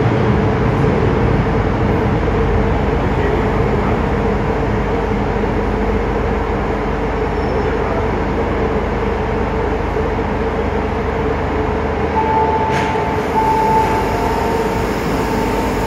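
MTR M-train electric multiple unit running into an underground metro station and braking to a stop, a steady rumble with a held mid-pitched tone throughout. About twelve seconds in, as the doors open, a brief hiss and a steady high tone, broken twice, sound.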